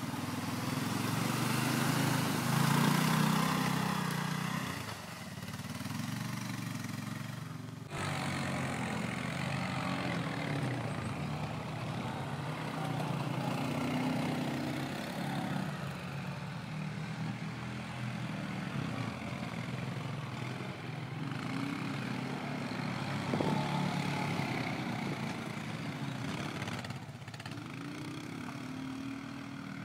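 Quad bike engines running and revving up and down as the ATVs work through mud and water. There is a loud rushing hiss for the first few seconds while a quad ploughs through a flooded track. The sound breaks off abruptly about eight seconds in and resumes.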